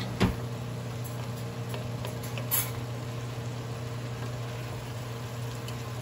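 Microwave oven humming steadily while it heats. A sharp knock comes just after the start, and a lighter clack about two and a half seconds in.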